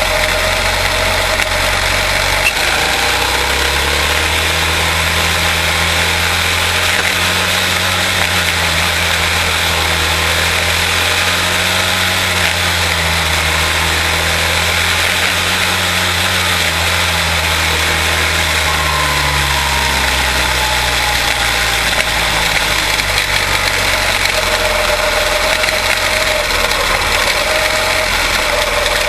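Quarter midget race cars' Briggs & Stratton Animal engines running on track, the engine pitch rising and falling as the cars go round.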